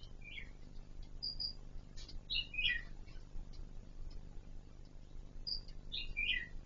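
Kon Ka Kinh laughingthrush calling: short phrases of quickly descending whistled notes, about half a second in, around two and a half seconds in, and again near the end, with a brief high double note between them.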